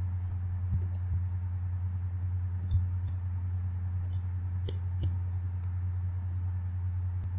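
Several scattered computer-mouse clicks over a steady low electrical hum.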